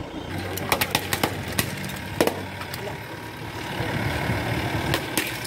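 Coconuts smashed one after another on an asphalt road: about eight sharp cracks, most in the first two and a half seconds and two more close together near the end, over a vehicle engine idling.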